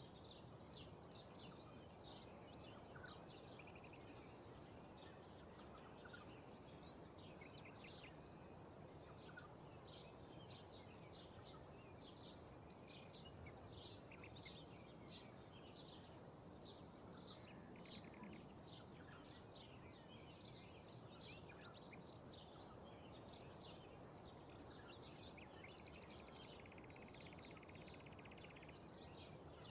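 Faint outdoor field ambience: many small birds chirping, with short high notes coming thickly throughout, over a steady low wind rush.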